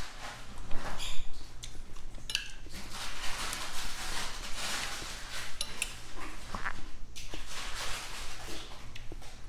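Metal spoon and fork clinking and scraping against a plate while food is cut and scooped, with a few sharp clinks.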